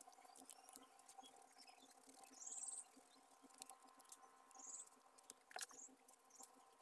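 Near silence: faint scratches and taps of an oil pastel rubbed on paper, with several brief high rising chirps and a faint steady hum underneath.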